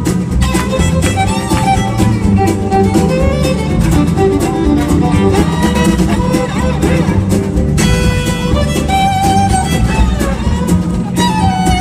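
Live string band playing an instrumental break of an old-time folk song, a fiddle carrying the melody over a steady rhythm accompaniment.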